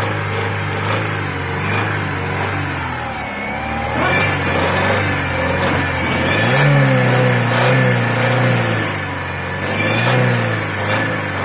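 Chevrolet Optra 1.6 L four-cylinder engine running and revved up a few times, then settling back.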